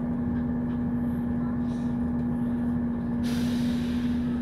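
Diesel passenger train running along the line, heard from inside the carriage: a steady rumble and drone with a strong steady hum. About three seconds in, a hiss lasts about a second.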